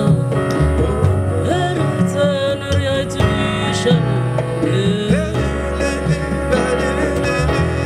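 Live jazz-inflected band playing: a double bass holds low notes under piano chords while a lead line slides and bends between notes over the top.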